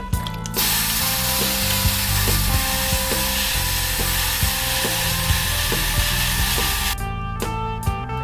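Background music with a steady beat, over which a sandblast cabinet's blasting gun hisses steadily as it strips rust from a steel part. The hiss starts shortly in and cuts off suddenly near the end.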